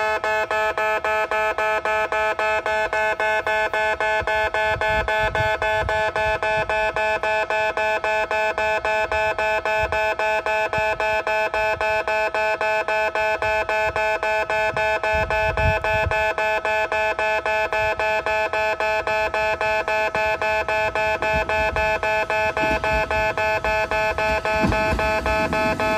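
Japanese railway level-crossing alarm ringing: a fast, even run of electronic dings at fixed pitches that keeps on without a break. A low rumble builds near the end as a train approaches.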